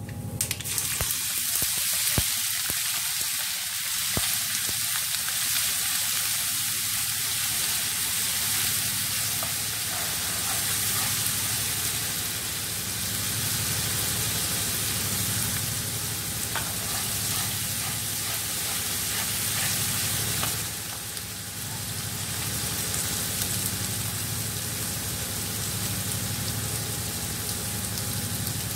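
Blended spice paste of garlic, onion, galangal, ginger and lemongrass frying in hot oil in a wok with a steady sizzle that starts as the paste goes in. A few clicks of the spoon come in the first seconds.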